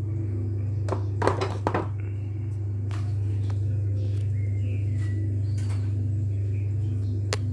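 Steady low hum, with a quick cluster of light clicks and taps about a second in and one sharp click near the end, typical of a spice jar or dish being handled on a kitchen counter.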